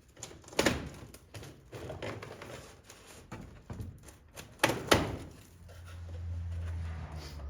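Wooden sponson being worked loose from a wood-and-canvas boat hull: scattered knocks and taps of wood, with a sharp knock about half a second in and two more just before the five-second mark. A low steady hum joins in over the last two seconds.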